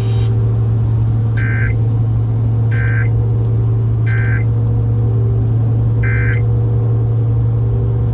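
Four short, buzzy two-tone data bursts from a radio Emergency Alert System broadcast, the end-of-message codes that close the warning, the last coming after a longer gap. Under them a loud, steady low drone of the car's cabin and road noise runs throughout.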